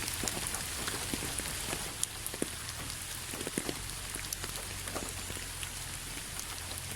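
Steady rain falling, with a continuous hiss and many separate drops ticking and pattering close by on a surface. A faint low hum lies underneath.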